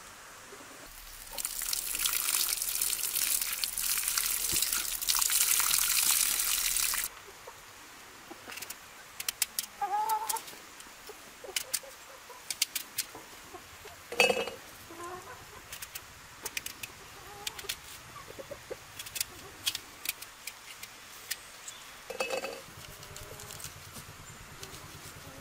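A steady hiss lasting about six seconds, then domestic chickens clucking now and then among small clicks and knocks.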